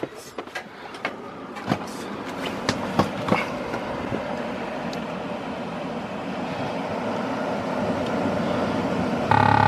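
The 2019 Freightliner Cascadia's Detroit DD15 diesel starting and running, with a few clicks and knocks in the first seconds and a steady running noise that slowly grows louder. Near the end the truck's lane departure warning system starts beeping.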